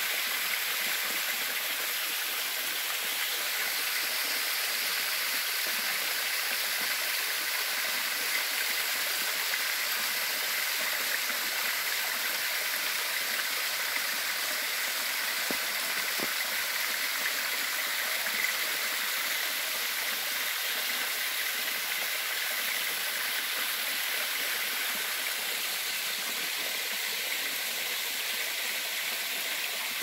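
Small waterfall pouring down rock and splashing into a shallow pool: a steady, even rush of falling water.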